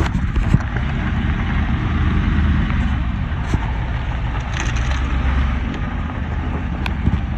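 Motorhome engine idling steadily, a low, even rumble, with footsteps crunching over dry straw and gravel on top.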